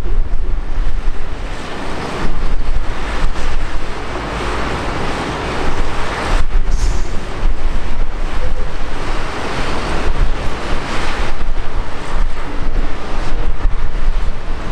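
Antonov An-124 freighter's four D-18T turbofan engines running as it rolls along the runway after landing: a loud, uneven rush of jet noise, with wind buffeting the microphone.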